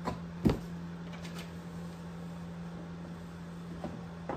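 Two short knocks about half a second in, then a few faint clicks, as the plastic front bumper cover of a 1998–2002 Honda Accord is handled and offered up to the car's front end. A steady low hum runs underneath.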